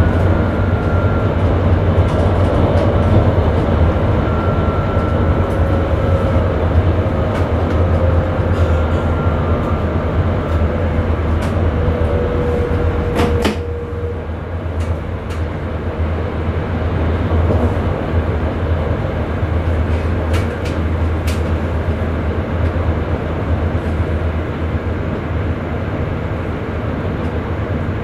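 Electric Sprinter train running, heard inside the driver's cab: a steady low rumble, with a faint electric whine that slowly falls in pitch. About halfway through the whine ends with a sharp click and the running noise drops a little, with a few lighter clicks after.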